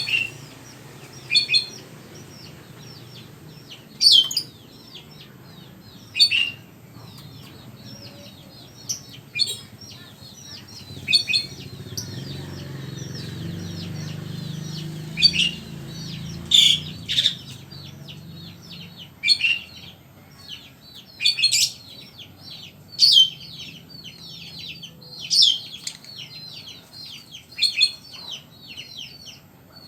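Caged songbird singing in short bursts of rapid, high chirps, one burst every second or two.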